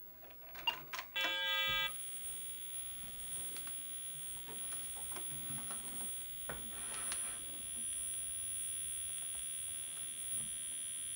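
Clicks of Apple IIe keys being pressed, then the computer's short beep about a second in as it resets into its built-in self-test. After the beep a steady high-pitched whine with a faint hiss carries on, with a few light clicks.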